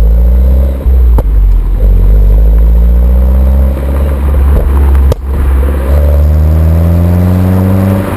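A 2011 Mini Cooper S (R56) turbocharged 1.6-litre four-cylinder accelerating hard through the gears on its stock exhaust: the engine note climbs steadily, drops at each gear change, and climbs again. A sharp crack from the exhaust marks the gear changes about a second in and about five seconds in.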